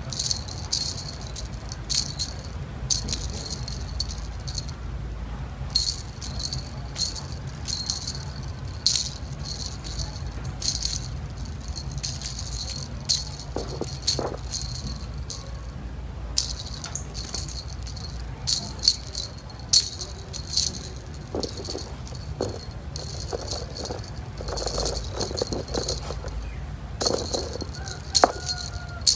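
Small metal jingle bells on a cat's wand toy jingling in irregular bursts as a kitten bats and grabs at them, over a steady low hum.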